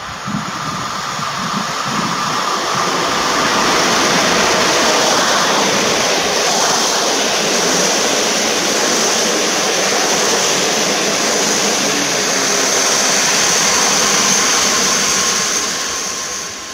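Passenger train hauled by an EP07 electric locomotive passing through the station at speed without stopping. A rush of wheels on rail builds as it approaches, holds steady and loud while the coaches go by, then fades near the end.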